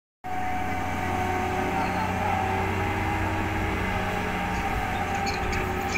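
Steady drone of heavy port cargo-handling machinery, a harbour crane working a clamshell grab bucket, with a constant low hum and several steady tones above it.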